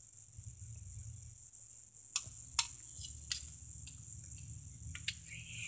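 Faint, steady chirring of crickets, with a few sharp clicks scattered through it.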